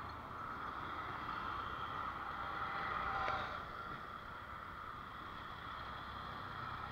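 Drone propellers whirring steadily, a constant hum with a higher whine above it and a short tick about three seconds in.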